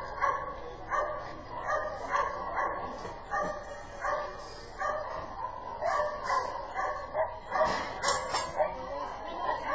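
A dog barking repeatedly in short, even barks, about two a second.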